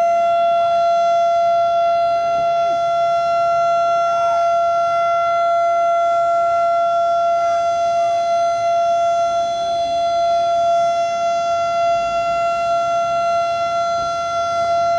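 An alarm or siren sounding one steady, unbroken mid-pitched tone that neither rises nor falls.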